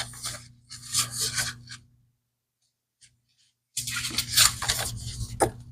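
Paper dust jacket rubbing and sliding against a book's cover as it is taken off, in two spells of rustling with a short silent pause between.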